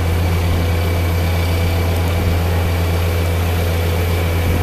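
Side-loader trailer's engine-driven hydraulic crane running steadily as its arms lower a shipping container: a deep constant hum with a thin, steady whine above it.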